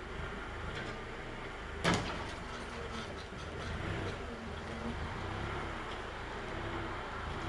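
Diesel semi truck engine running at idle, a steady low rumble, with one sharp clank about two seconds in.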